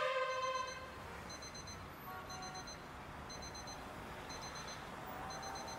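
Faint, high-pitched electronic beeping: a quick triple pip repeating about once a second, over a low rumble. The last notes of music die away in the first second.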